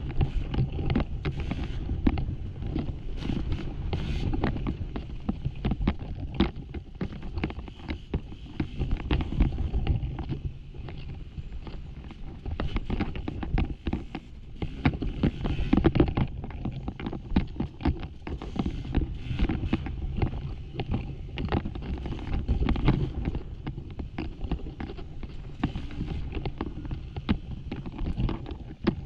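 Dirt bike ridden hard over a loose, rocky trail: the engine runs with constantly changing throttle, under a dense clatter of knocks from rocks and the bike's chassis.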